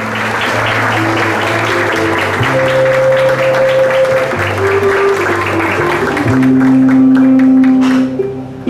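Audience applauding over instrumental music with a guitar and long held notes; the applause dies away near the end.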